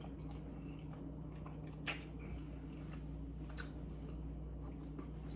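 A person quietly chewing a mouthful of hamburger, with a couple of small wet mouth clicks, over a steady low hum.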